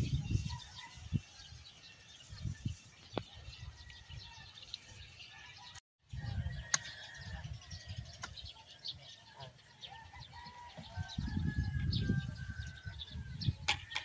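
Open-field ambience: wind buffeting the microphone in uneven gusts, with faint bird calls, and a short dropout to silence about six seconds in.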